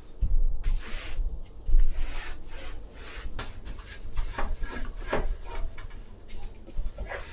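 Repeated rubbing and scraping strokes mixed with light knocks and clicks, irregular in rhythm, like things being handled and wiped during household cleaning.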